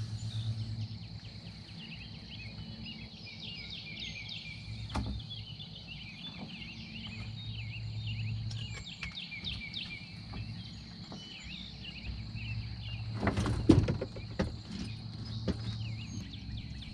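Evening outdoor ambience on the water: a steady high insect drone with many short bird chirps. A cluster of loud knocks and thumps comes about thirteen and a half seconds in.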